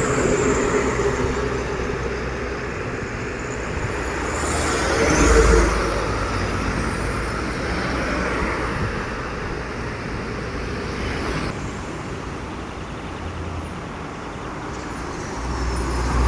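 Road traffic passing by: the steady noise of vehicles on the road, with one vehicle going past about five seconds in and a heavy, low rumble of an approaching vehicle building near the end.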